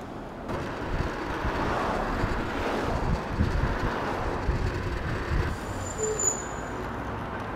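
Wind buffeting the microphone and road rush from riding an electric scooter, starting about half a second in.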